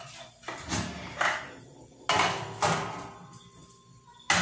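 Metal oven door of a wood-fired stove being opened and a metal baking tray of bread rolls pushed inside: several sharp metallic clanks and scrapes, the loudest near the end.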